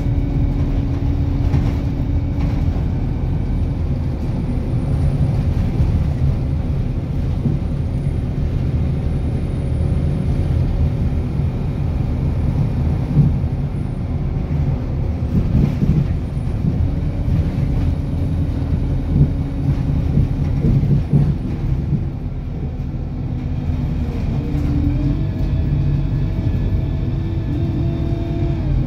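Engine drone and tyre rumble of a moving road vehicle, heard from inside. The engine note climbs in steps near the end as it speeds up.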